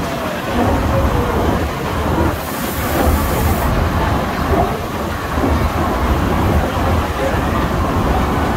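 Mallet articulated steam locomotive and its train running through a tunnel: a loud, steady rumble and clatter of wheels and running gear, closed in by the tunnel walls, with a brief hiss about two and a half seconds in.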